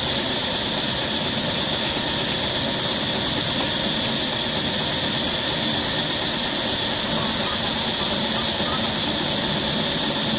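A steady, unchanging hiss with an even high-pitched drone over it.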